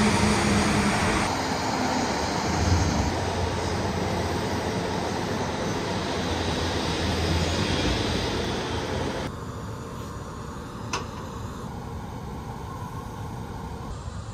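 Steady rushing noise of a moving vehicle, dropping abruptly in level about nine seconds in, with a short sharp click a couple of seconds later.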